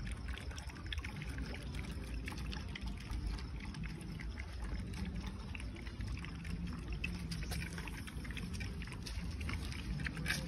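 A dog and her puppies lapping and chewing food from a steel bowl: quick, irregular wet smacking and small clicks.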